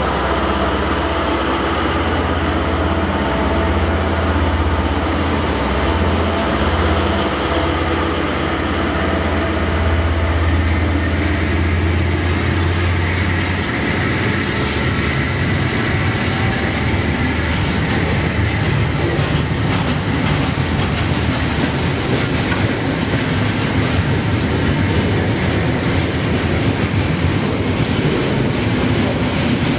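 Freight train passing close by. For the first half the low, steady hum of its two diesel locomotives dominates. About halfway through, the engine note drops away and container wagons roll past with a steady rumble and the clickety-clack of wheels over rail joints.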